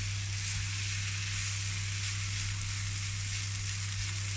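Breaded pork schnitzels sizzling steadily in shallow oil in a frying pan, just turned over to fry the second side. A steady low hum runs underneath.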